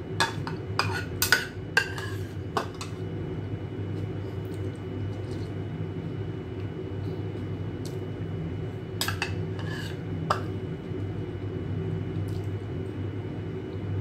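Metal spoon and chopsticks clinking against a ceramic soup bowl while eating noodle soup: sharp clicks in quick clusters in the first few seconds and again about nine to ten seconds in, over a steady low hum.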